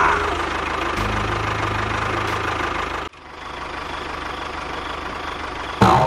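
Vehicle engine idling with a steady low hum. It cuts off abruptly about three seconds in, giving way to a quieter steady engine sound. A short, loud, sharp sound comes near the end.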